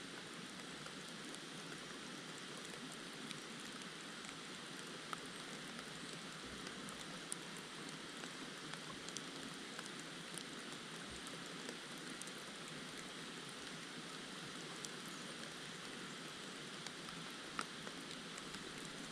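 Steady faint hiss with scattered small ticks throughout, like light rain or running water.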